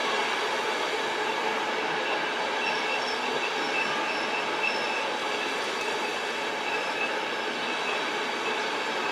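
Trenitalia passenger and couchette coaches rolling steadily past, their wheels on the rails making an even rolling noise. Faint, short, high-pitched wheel squeals come and go in the middle.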